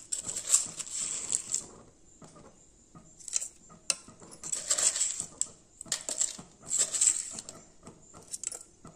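Flat wooden spatula stirring in an aluminium pressure cooker, scraping and knocking against the metal sides in several short, uneven bouts.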